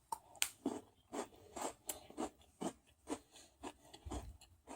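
Someone biting into and chewing a crunchy white-chocolate-covered biscuit, with short crunches about twice a second.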